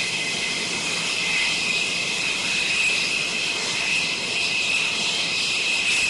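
F-16C fighter's jet engine running with a steady high whine over a rush of noise.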